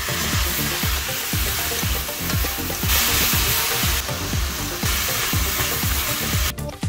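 Water spinach stir-frying in oil in a hot wok over high heat, a loud, steady sizzle as it is tossed. The sizzle cuts off near the end, with a background music beat underneath throughout.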